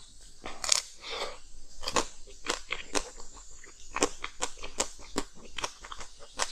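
Hard frozen ice being bitten and chewed close up. A longer grinding crunch comes about a second in, then sharp crunches about twice a second.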